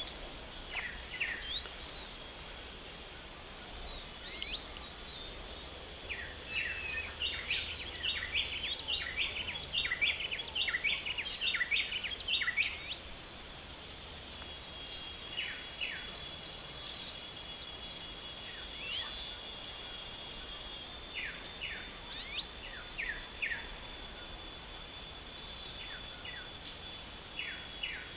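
A flock of blue-black grassquits chirping in many short, quick notes, busiest for several seconds in the middle, over a steady high insect drone.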